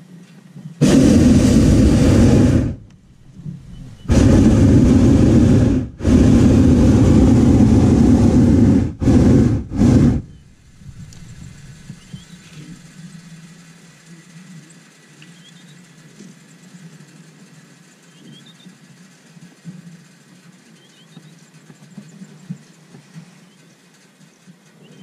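Hot air balloon's propane burner firing in five loud blasts: three long ones of two to three seconds each, then two short ones, before it shuts off about ten seconds in. A faint low hum follows.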